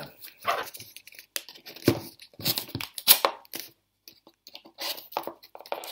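A cardboard box being opened by hand: short, irregular rasps of cardboard and tape tearing, with crinkling as it is handled.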